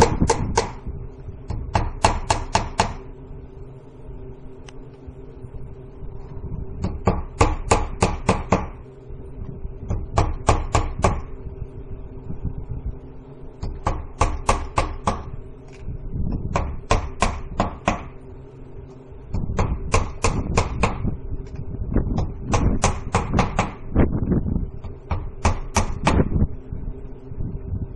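Hammer nailing vinyl siding to a shed wall: bursts of six to ten quick blows, a fresh burst every two to three seconds.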